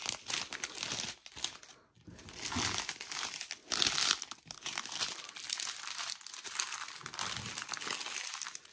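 Small clear plastic bags of diamond-painting drills crinkling as they are handled and packed back together, in irregular bursts with a brief pause about two seconds in.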